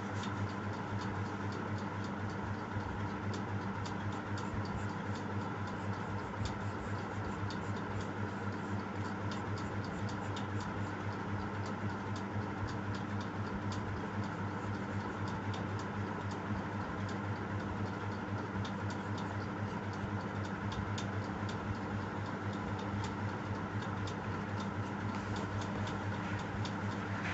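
Graphite pencil working on paper: many short, irregular ticks and scratches as strokes and dots are drawn. A steady low hum runs underneath.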